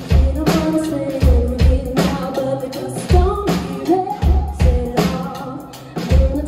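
Live pop-rock band playing with a woman singing lead: drum kit, bass guitar and keyboards, with a steady kick-drum beat and a sung melody over it.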